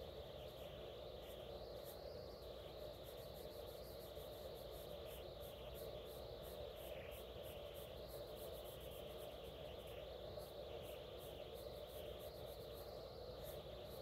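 Faint scratching of a Prismacolor colored pencil shading on paper, over a steady background hum.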